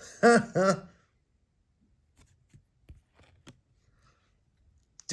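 A short two-syllable vocal sound, then faint light ticks and soft rustles of trading cards being handled and set down.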